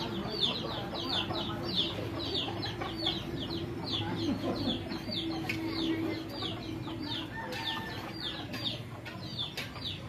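Farmyard poultry calling: low clucking and murmuring under a run of high, falling peeps that repeat about three times a second.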